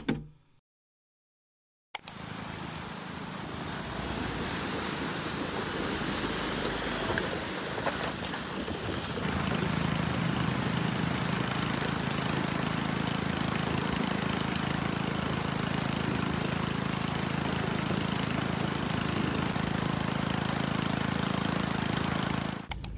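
Near silence for about two seconds, then a pickup truck's engine running steadily at low speed as it wades a shallow rocky river, with the rushing and splashing of the water around it; it gets somewhat louder about nine seconds in.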